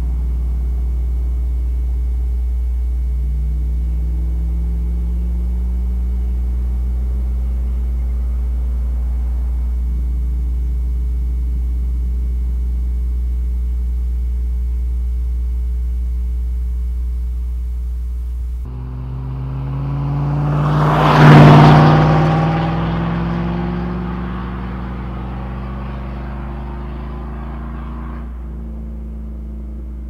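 V8 exhaust of a Chevrolet 5.3L LM7 pickup with Cherry Bomb Extreme mufflers: a steady low rumble whose pitch rises slowly. After an abrupt cut about 19 s in, the same truck with Cherry Bomb M-80 mufflers drives past. It swells to a loud peak a couple of seconds later, then fades with its pitch falling.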